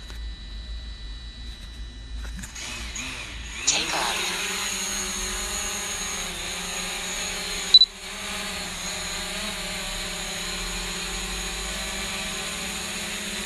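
DJI Mavic Pro quadcopter's four motors and propellers spinning up about two and a half seconds in, the whine rising in pitch as it lifts off, then settling into a steady high buzzing whine as it climbs and hovers. A short loud beep cuts in about eight seconds in.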